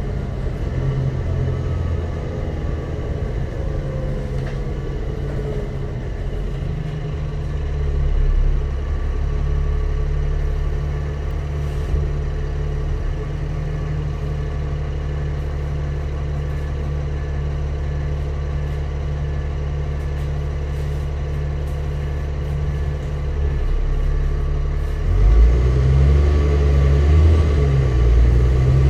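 Dennis Trident double-decker bus heard from inside the upper deck as it drives: a steady low diesel drone with a whine falling in pitch over the first few seconds. The engine grows louder about seven seconds in and louder again from about twenty-five seconds in.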